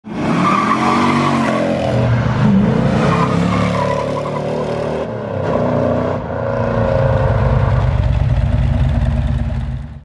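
Car engine revving, its pitch rising and falling, with tire squeal. From about two-thirds of the way in it runs with a fast, rough pulse, then cuts off abruptly.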